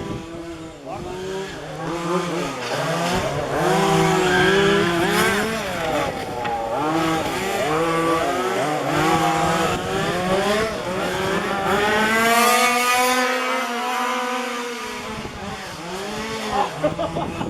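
Several 1:5-scale petrol RC cars' small two-stroke engines running on the track, their pitches rising and falling and overlapping as the cars accelerate, brake and pass.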